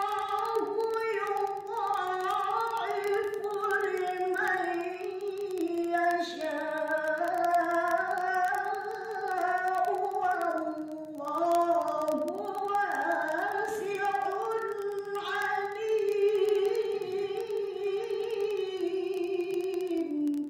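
A woman's voice singing a song in one clear melody line. It starts abruptly just before and stops abruptly at the end.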